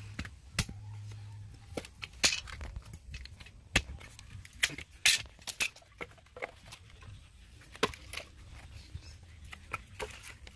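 Pieces of dry scrap wood knocking and clattering together in irregular clicks as they are handled and stacked into a pile.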